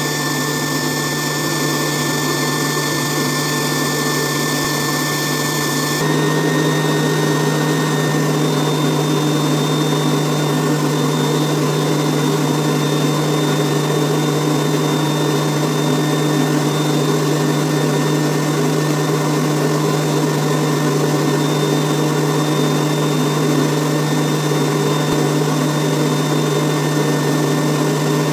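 Homemade electric air blower running steadily, pushing air up a pipe to hold a ball floating in the airstream. It gives a constant motor hum with a faint high whine above it, a little louder about six seconds in.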